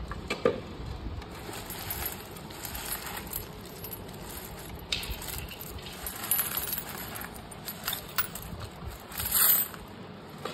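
Coins clinking and paper banknotes rustling as hands spread and rake through a heap of money spilled from a broken clay piggy bank. Many short clinks run through it, with a few louder ones, the loudest close to the end.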